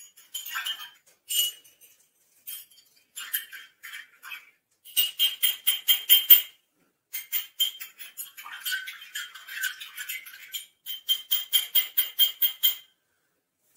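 Metal teaspoon stirring tea in a small glass, clinking hard against the sides in quick runs of about six clinks a second, broken by short pauses.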